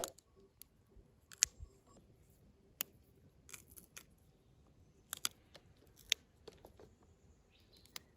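Scattered sharp clicks and light knocks, about a dozen at uneven intervals, the loudest right at the start.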